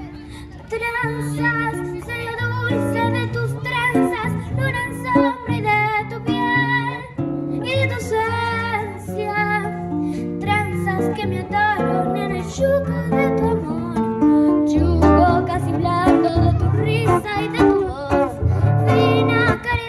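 A young girl singing a tango in Spanish, accompanied by an acoustic guitar. The guitar plays alone briefly before her voice comes in about a second in.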